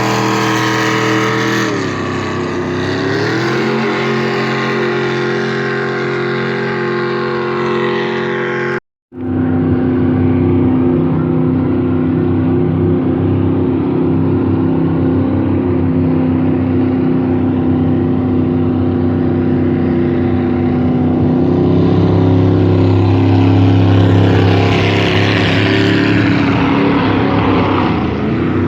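High-horsepower jet boat engines running on the river, steady and loud, with a brief drop and rise in pitch about two to three seconds in. The sound cuts off suddenly for a moment near nine seconds, then the engine resumes with a rush of spray hiss building toward the end.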